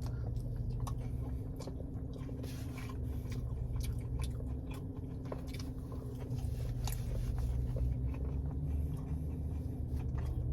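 A person chewing a breaded mozzarella cheese bite close to the microphone, with soft wet mouth clicks, over a steady low hum.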